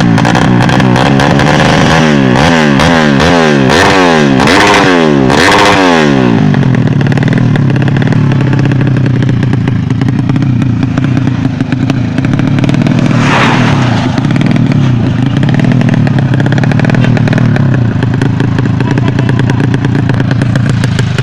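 Drag-tuned motorcycle engine revved in quick repeated throttle blips, about one every 0.7 seconds, for the first six seconds, then running steadily.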